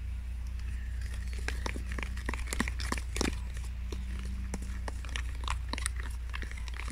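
A metal spoon stirring and scraping in a plastic tub, beating an egg into flour for a batter: a dense, irregular run of small clicks and scrapes that starts about a second in, over a steady low rumble.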